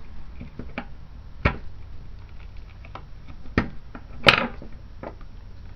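Plastic clicks and knocks from a camera's casing and small parts being handled and pried apart. There are a few separate sharp taps, with fainter ticks between them, and the loudest comes just after four seconds in as a brief scraping click.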